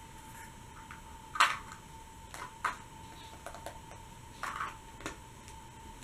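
Hollow plastic surprise-egg halves clicking and clacking together in a child's hands: a sharp click about one and a half seconds in, the loudest, then several lighter clicks.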